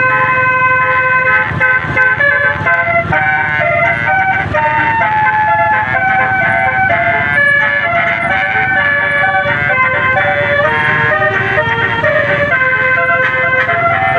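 Indonesian 'telolet' (basuri) bus horn playing a tune: several horn trumpets sounding together in stepped notes that change pitch a few times a second, over a low engine rumble.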